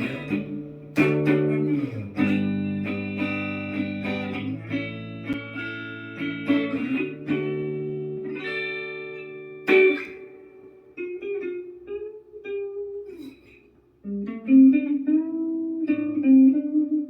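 Electric guitar played through a Positive Grid Spark Go mini guitar amp: held, ringing chords for about ten seconds that cut off sharply. Then sparser single-note phrases with a note bend, a short pause, and more sustained notes.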